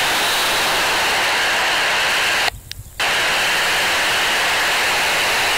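Loud, steady FM receiver hiss from a Baofeng UV-5R handheld with its squelch open on the SO-50 satellite downlink, with no station coming through. About two and a half seconds in, the hiss cuts out for half a second, leaving a faint thin tone, then comes back.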